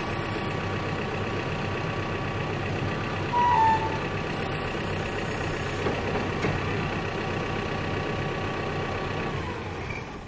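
CAT backhoe's diesel engine idling steadily, with a short high tone a little over three seconds in. Near the end the engine note drops and the sound falls away.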